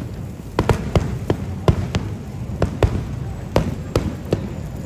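Fireworks going off: a run of sharp bangs at irregular spacing, about two or three a second, over a steady low rumble.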